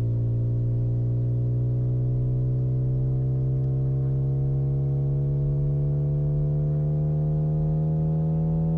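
Synthesized engine hum of an animated car: a steady buzzy tone with many overtones, its pitch rising slowly and evenly as the engine's revs climb during acceleration.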